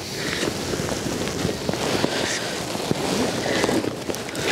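A hooked rainbow trout splashing and thrashing at the water's surface as it is played on a fly rod, with a steady rush of wind on the microphone underneath.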